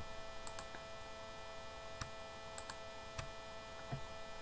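Steady electrical hum made of several fixed tones, with about half a dozen sharp computer mouse clicks spread through it, some in quick pairs.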